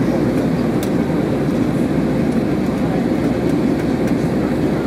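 Steady cabin noise inside an Airbus A320-214 in flight: its CFM56 turbofan engines and the air rushing past the fuselage make an even, deep hum, heard from a window seat beside the wing.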